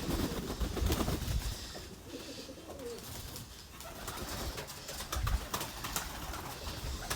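Iraqi domestic pigeons cooing: low, wavering coos near the start and again about two seconds in, with scattered clicks and low rumbles underneath.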